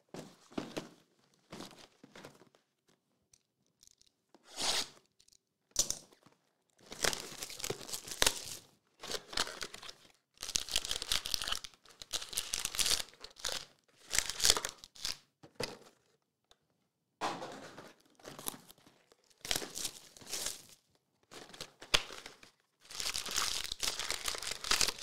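Cardboard and wrapping of Chronicles baseball card boxes being torn open and crinkled by hand: irregular bursts of tearing and crinkling, some sharp and brief, some lasting a second or two.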